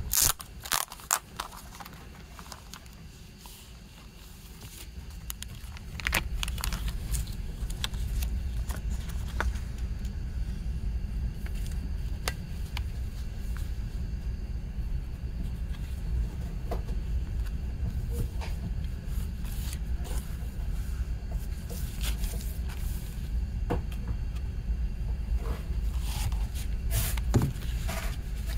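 Handling noise from a cardboard mini-LP CD sleeve and its paper inserts: scattered taps, scrapes and rustles of card and paper, with a cluster of sharp taps at the start. From about six seconds in, a steady low rumble sits under it.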